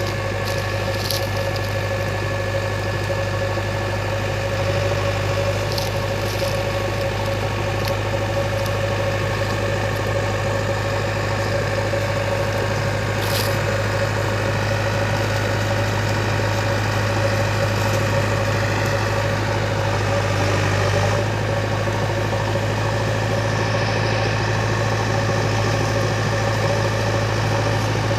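JCB 3DX backhoe loader's diesel engine running steadily at a constant speed, with a few brief clicks.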